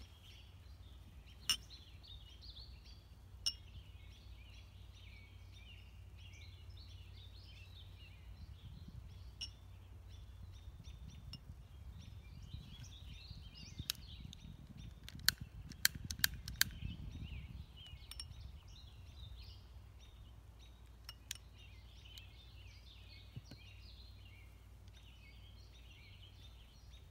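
Birds singing steadily in the background, with sharp clicks from a utility lighter being snapped. The clicks are scattered, with several in quick succession about halfway through.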